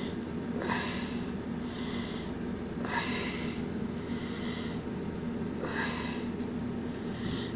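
A person's noisy nasal breathing close to the microphone, three loud breaths about two and a half seconds apart, over a steady low hum.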